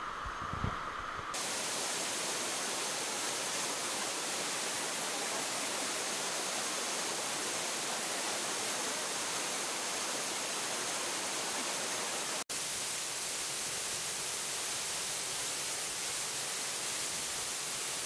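Steady rushing of a waterfall, an even hiss with a momentary dropout about twelve seconds in. In the first second, a few soft knocks from a tripod being handled.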